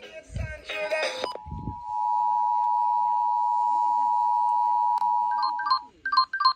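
Emergency Alert System two-tone attention signal broadcast over radio, a steady dual tone held for about four seconds that cuts off abruptly, then a quick run of short touch-tone beeps near the end. A brief snatch of other broadcast audio with two dull thumps comes before the tone.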